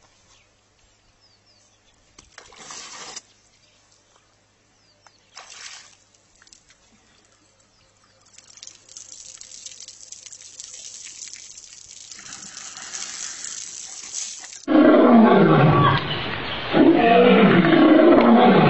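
A lion roaring, coming in suddenly and loud about fifteen seconds in as a run of heavy roars. Before it there is only faint noise with a few soft splashes, which fits the elephant's trunk in the pool water.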